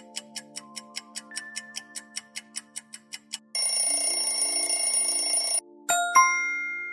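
Quiz countdown sound effects over soft background music: a clock ticking about five times a second, then an alarm bell ringing for about two seconds as time runs out, followed by a chime that rings on and fades.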